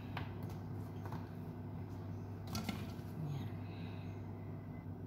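Quiet kitchen room tone with a steady low hum and a few light taps as onion slices and a knife are handled on a wooden chopping board.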